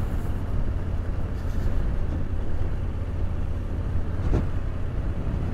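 Yamaha Ténéré 700 motorcycle's parallel-twin engine running steadily as the bike rides along a gravel track, with a constant low drone and rushing noise.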